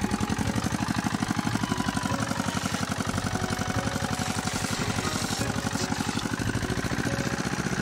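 Small engine-driven water pump running steadily with a fast, even chugging, draining the last of the water out of the canal.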